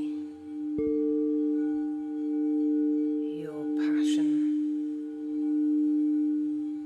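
Singing bowl ringing on one steady low note near D, struck again about a second in, its tone swelling and fading in slow waves about every two seconds.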